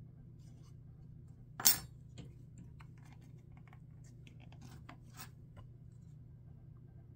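Tools and wood being handled on a shop table saw: one sharp knock about a second and a half in, then light taps and short scrapes, over a steady low hum.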